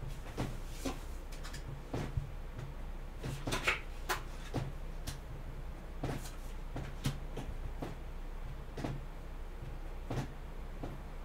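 A deck of tarot cards being shuffled by hand: irregular soft clicks and flicks of the cards, with a longer, brighter rustle about three and a half seconds in, over a low steady room hum.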